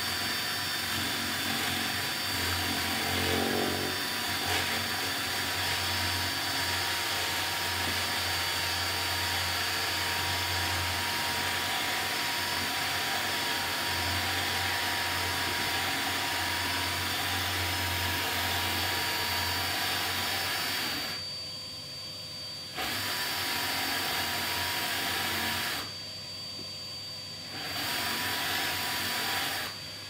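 DeWalt cordless drill running steadily as it bores holes into a kitchen door panel, with a steady motor whine. It stops twice briefly near the end, then starts again and stops.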